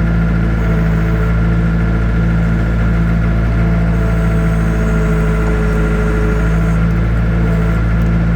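A vehicle engine running steadily at a constant speed, without revving.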